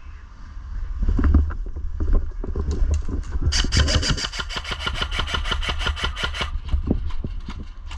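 Airsoft rifle firing a long full-auto burst of rapid, evenly spaced clicks, starting a few seconds in and lasting about three seconds. Scattered knocks and a low rumble of movement and wind run under it.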